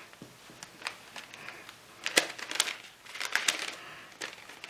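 Clear plastic packet of coriander seeds crinkling and crackling as it is handled, in a run of sharp, irregular crackles.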